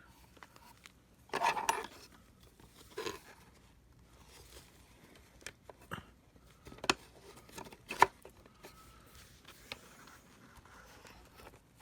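Small handling noises from work on a vacuum cleaner's power-cord wiring: a short rustling scrape about a second and a half in, a shorter one about three seconds in, and a few sharp clicks, the loudest about eight seconds in.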